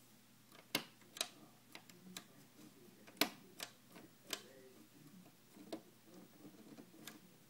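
The power on/off switch of a DJM DJ mixer being pressed over and over, giving about nine sharp clicks at uneven intervals; the switch is broken.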